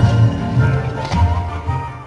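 Background music with a pulsing bass beat, fading down near the end.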